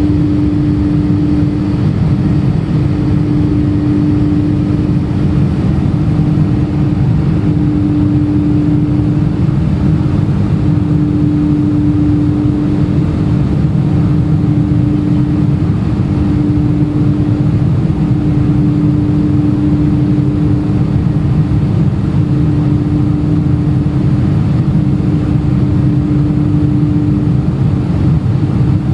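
Airliner's jet engines running steadily during takeoff and climb: a continuous low rumble with a steady hum that swells and fades every couple of seconds.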